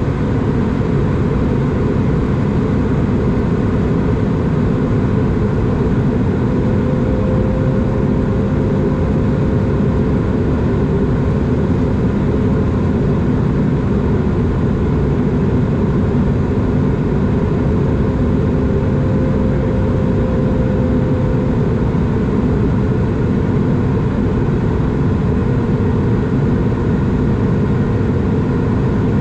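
Steady cabin drone of an Airbus A220 in flight, heard from inside the cabin: the rumble of its Pratt & Whitney PW1500G geared turbofans and the rush of air, with a faint steady hum coming in about six seconds in and fading out past twenty seconds.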